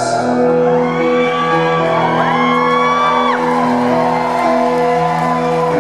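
A live band performance of a slow song: held keyboard chords sustain steadily with no sung words. About two seconds in, a high voice glides up, holds for about a second, and falls away.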